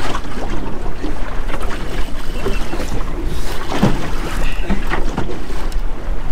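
Wind buffeting the microphone over the steady wash of the sea around an open boat.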